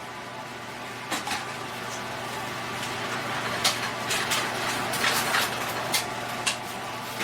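Scattered clicks and rustles of cables, plugs and plastic being handled, over a steady low hum.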